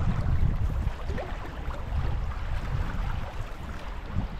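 River current rushing and lapping against a canoe hull close to the water-level microphone, with a low wind rumble on the microphone.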